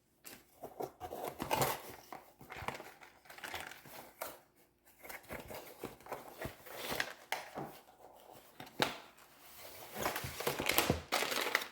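Paper and plastic packaging rustling and crinkling in irregular bursts as the kit's contents are taken out and handled.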